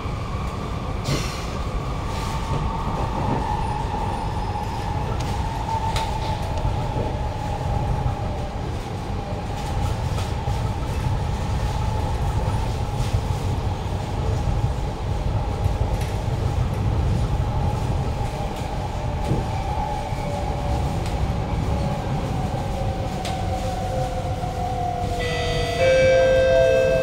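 Traction motor whine of a Kawasaki-CRRC Sifang C151A metro train, heard from inside a passenger car. It carries an echoey ring and falls slowly in pitch as the train slows, over a steady rumble from the wheels on the track. Near the end a brief, louder tone with overtones cuts in.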